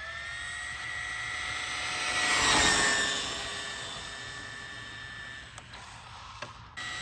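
Traxxas Rally Slash RC car with a Velineon brushless motor driving past. Its high, steady motor and drivetrain whine swells to its loudest about two and a half seconds in, drops slightly in pitch and fades. The sound breaks off abruptly near the end as another pass begins.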